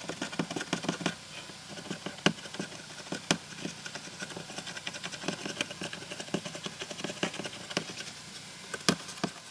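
Irregular light clicks, taps and rustling of small objects being handled, with a few sharper knocks, as a rag and a bottle of acetone are fetched and readied.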